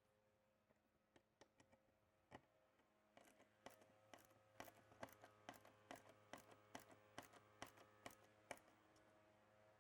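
Faint, evenly spaced clicking, about three clicks a second, as a screwdriver drives the power supply's retainer screws into the lightbar's base, with a few scattered clicks before it.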